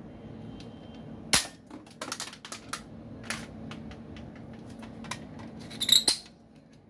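Sharp plastic clicks and snaps from a shark-shaped soft-bullet toy gun being worked by hand, its plunger rod drawn out at the back. There is one loud snap about a second and a half in, a scatter of smaller clicks, then a loud double snap near the end.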